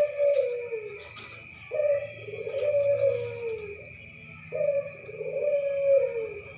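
Puter dove cooing: a short note followed by a longer coo that falls in pitch, repeated three times, about every three seconds.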